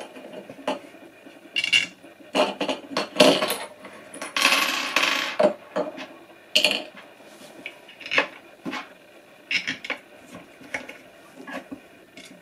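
Hard plastic pump parts and small screws clicking and clattering against a tabletop as a pond pump's volute housing is fitted back on, with a longer scraping rustle about four and a half seconds in.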